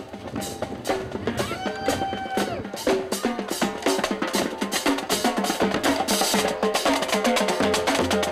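Music with busy, fast percussion, drums and sharp wood-block-like hits, under a pitched melody; one held note bends up and then down about two seconds in.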